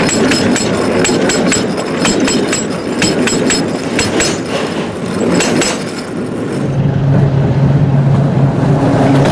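Railway wheels rolling over a rail joint, giving quick groups of sharp metallic clicks, clickety-clack. From about six and a half seconds in, a passing rail vehicle gives a steady low drone.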